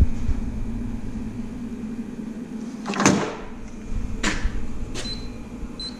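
Computer wheel balancer being set up: a few sharp clicks and knocks from handling its rim-measuring arm, then short high electronic beeps from its keypad near the end as the measurement is entered.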